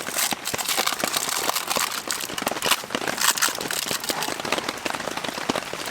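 Heavy rain pattering densely and steadily on tent fabric.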